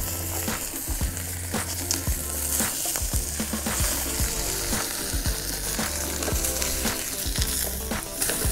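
Ribeye steak, already cooked through sous vide, sizzling hard as molten salt sears its outside in a stainless steel pan, with scattered pops and crackles through the sizzle.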